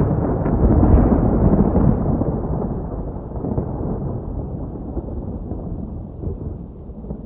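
Thunder rumbling, with a few sharp crackles in the first second, then a long roll that slowly fades away.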